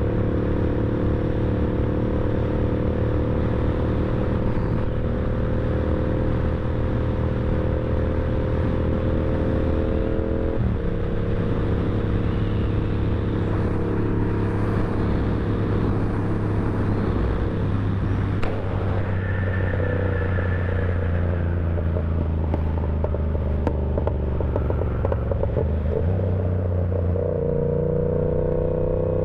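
Yamaha R7's 689 cc parallel-twin engine running steadily while riding. The engine note changes abruptly about a third of the way in and again near the end. There is a single sharp click about two-thirds of the way through.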